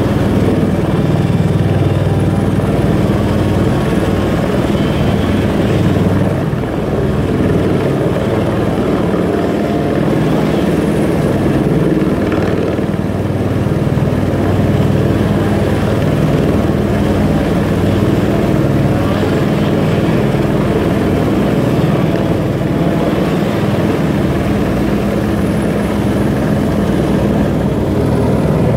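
Helicopter hovering overhead, its rotor and turbine running at a steady level, with a steady low hum under the blade noise.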